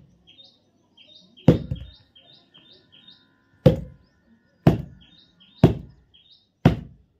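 A blade chopping into a coconut: five sharp strikes, the last four about a second apart. A small bird chirps over them in quick short high notes.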